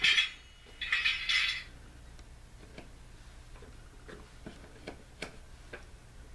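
Two short hissy bursts in the first second and a half, then faint, irregularly spaced light clicks over a low steady hum, from an N-scale model railway as a locomotive is run on it.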